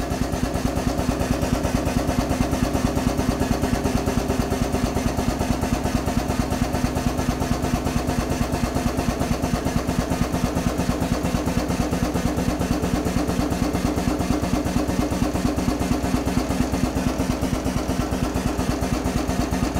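Powered drum tipper's lift drive running steadily with a fast, even pulse as the mast raises a clamped plastic drum.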